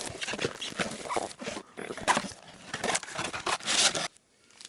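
Trading-card pack wrappers being torn open and crinkled by hand: a rapid, uneven run of ripping and rustling that stops suddenly about four seconds in.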